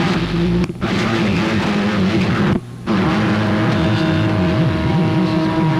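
CB radio receiver putting out a loud noisy signal with several warbling tones mixed in, typical of more than one station keying up on the channel at once. The signal drops out briefly twice, near the start and about two and a half seconds in.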